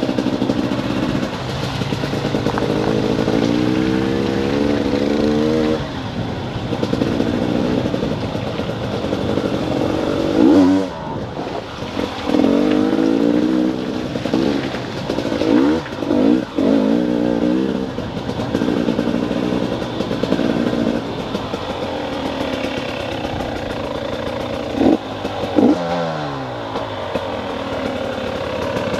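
Small off-road engine rising and falling in pitch with the throttle while riding a muddy dirt trail, with several sharp revs, the highest about 11, 16 and 25 seconds in.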